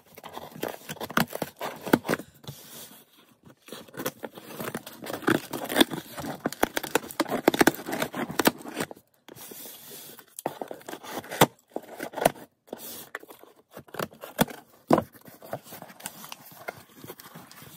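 A cardboard box being cut and torn open: a scissor blade scraping along the tape seam, and reinforced paper packing tape ripping off the cardboard, with crinkling and handling of the flaps. It comes in uneven stretches with several brief pauses.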